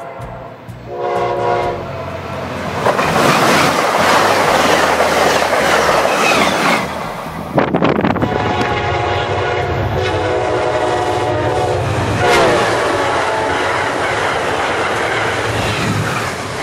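Amtrak passenger train led by a GE Genesis P42DC locomotive passing at high speed: a short horn blast, then a loud rush of the train going by. A second train's air horn follows, sounded long and dropping in pitch as the locomotive passes, with the noise of the train rushing by.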